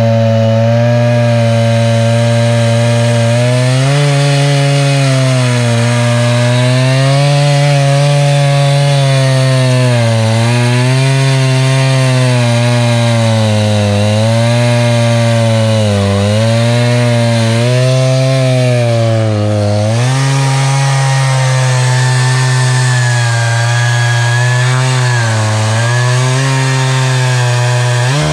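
Echo CS-590 Timber Wolf two-stroke chainsaw running at full throttle, ripping lengthwise through a cedar log in a chainsaw mill. Its pitch sags and recovers every couple of seconds as the cut loads the engine.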